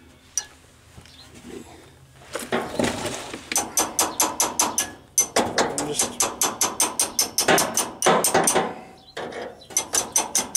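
A wrench working a steel brake line fitting: rapid metallic clicking at about six clicks a second, in several runs with short pauses between them, starting about two seconds in.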